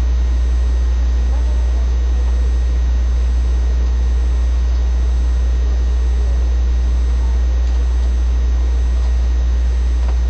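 A loud, steady low-pitched hum that doesn't change, drowning out everything else, with faint voices of two women talking underneath.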